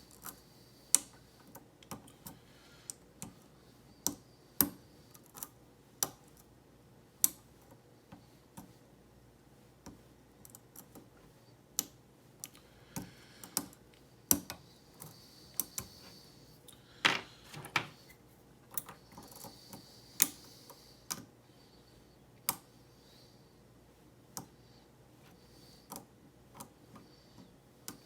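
A lock pick clicking and scraping against the pins of a Schlage SC1 pin-tumbler cylinder while picking for the back pin. Irregular sharp clicks, with a quick cluster about two thirds of the way through.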